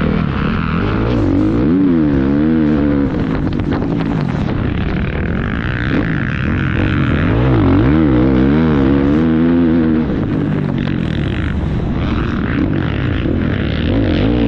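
450cc four-stroke motocross bike engine being ridden hard on a dirt track, its pitch rising and falling again and again as the throttle is opened and closed through the corners.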